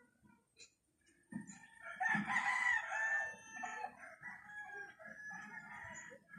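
A rooster crowing: one long call starting about two seconds in, followed by fainter calls.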